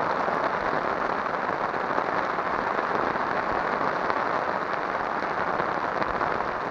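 Steady rain falling, an even hiss of drops with no letup.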